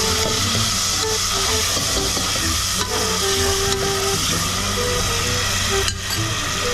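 Fish, onions and sauce sizzling and simmering in an aluminium pot as a spoon stirs them, a steady hiss. A simple melody of short notes plays over it.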